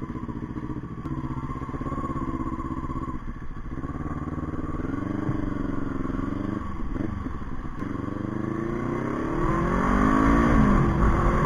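Kawasaki Ninja 400 parallel-twin engine through an Akrapovic exhaust while riding, the pitch rising and falling as it pulls through the revs and getting louder over the last few seconds.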